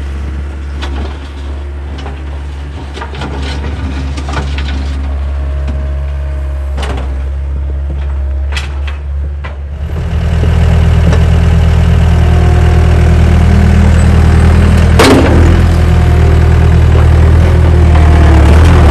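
Skid steer engine running while it backfills with rocky soil, with scattered knocks and clanks of rock and metal. About ten seconds in, the engine gets louder and stays loud, and a sharp bang stands out a few seconds later.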